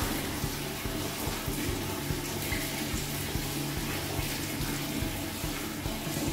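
Water running steadily, like a tap left on, a continuous even rush.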